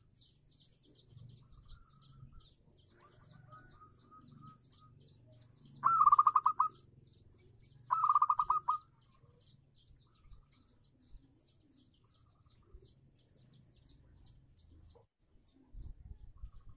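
Zebra dove (perkutut) cooing: two loud phrases of rapid staccato notes about two seconds apart, with softer trilled coos before them. Faint, fast, high-pitched chirping runs underneath, and there are a few low thuds near the end.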